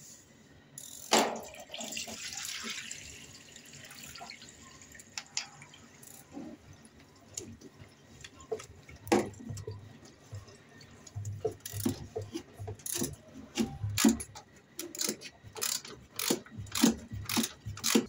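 Irregular sharp clicks and knocks of hands and a metal tool working at a front-loading washing machine's rubber door seal and steel drum. A brief hissing noise comes about a second in, and the clicks grow thicker in the second half.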